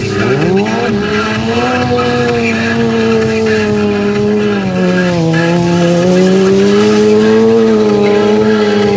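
Sport bike engine held at high revs through a stunt: its pitch climbs sharply just after the start, then stays steady with a brief dip about five seconds in before recovering.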